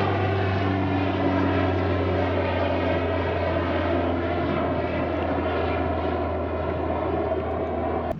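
A loud, steady motor drone with a low hum and a propeller-like whine above it, cutting off abruptly near the end.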